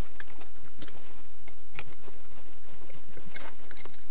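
Light, irregular clicks and taps of small metal screws being handled and driven as a tiny adapter is fastened onto a laser engraver's head with M3x6 screws.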